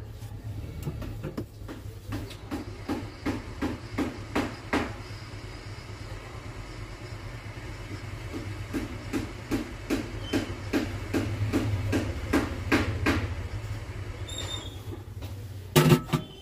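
Hot air rework station blowing on a phone motherboard to solder on a replacement boost coil: a steady low hum with regular clicking about two times a second, and a sharp knock near the end.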